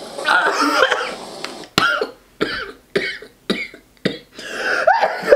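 A woman coughing and gagging in disgust: a drawn-out heave, then about five short sharp coughs roughly half a second apart, then another long rising heave near the end.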